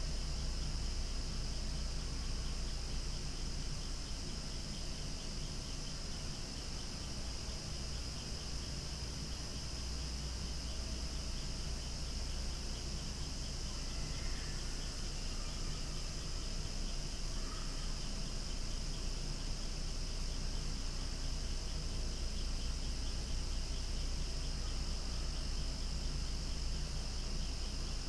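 Cicadas singing loudly in chorus, a continuous high-pitched drone that holds steady throughout.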